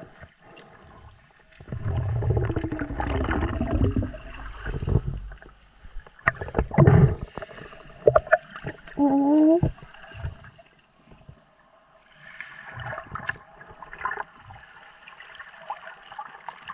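Underwater noise around a diver: gurgling and bubbling water, scattered knocks and clicks, and a short tone that rises and falls in pitch about nine seconds in.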